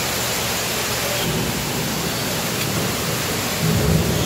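Steady rushing of water, an even hiss with no break, from the water feature of an aquarium turtle tank. A brief low rumble comes near the end.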